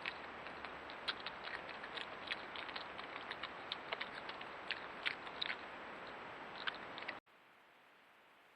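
European badger foraging or feeding close to a trail camera: irregular small clicks and crunches over a steady hiss. About seven seconds in the sound cuts off suddenly to a fainter, plain hiss.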